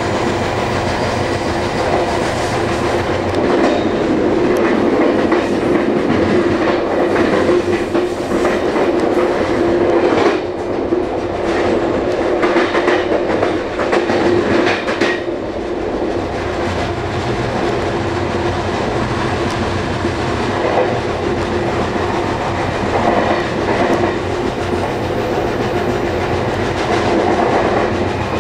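Amtrak Regional electric passenger train running at speed, heard from on board at the rear of the train. A steady rumble of wheels on rail with a constant hum, and wheel clacks that come thicker and louder between about 4 and 15 seconds in.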